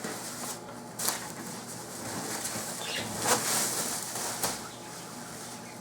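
Rustling and handling of packaging as chair parts are unpacked from the box, with a few short rustles and knocks about one second in, around three seconds in and near four and a half seconds.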